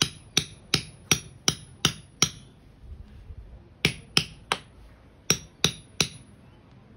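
Claw hammer striking the bare metal top of a tent spike pole, driving it into lawn soil. A run of seven blows at about three a second, a pause, then two runs of three, each blow with a short high metallic ring.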